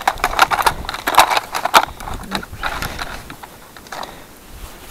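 Close handling noise: a quick run of rustles and clicks as a weigh net is unhooked from a dial spring balance, thinning out after about three seconds.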